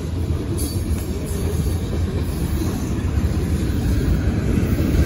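Freight train cars rolling past close by: a steady low rumble of steel wheels on the rails, growing slightly louder.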